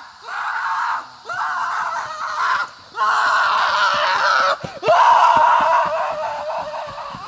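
A person screaming: a string of about five long, high screams with short gaps between them. Each scream starts with an upward swoop and then holds; the last one is the longest and fades out.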